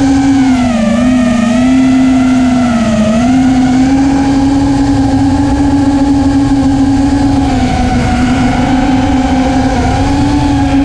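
Brushless motors and 5-inch propellers of an Impulse RC Alien FPV racing quadcopter, recorded on board in fast low flight: a loud, steady whine that dips in pitch briefly about a second in and again around three seconds in, over a rush of wind noise.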